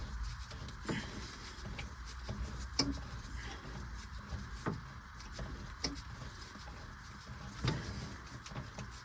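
Scattered sharp clicks and knocks of a wrench and metal working a hydraulic hose fitting loose on a backhoe, a few separate strikes over a steady hiss.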